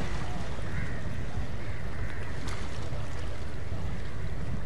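Steady low wind rumble buffeting the microphone, an even noise without any engine pitch or voices.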